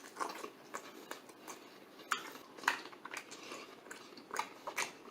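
Close-miked eating sounds: faint chewing with irregular wet mouth clicks and smacks, a few of them sharper and louder.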